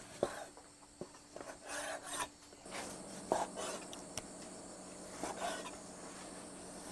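Chinese cleaver cutting raw pork belly into large chunks on a wooden chopping board: irregular knocks of the blade on the wood, with the scrape of the blade drawing through the meat between them.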